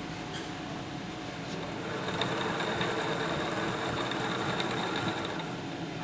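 Super 900 CNC toroid winder running, its shuttle winding fine wire onto a toroid core. It is a steady mechanical whirr that grows louder about two seconds in, with a high whine and light ticks.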